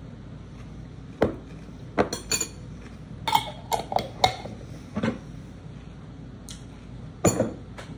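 Metal spoon clinking against a glass bowl while a glass pickle jar with a metal lid is handled and set down: about nine separate sharp clinks and knocks, a few ringing briefly.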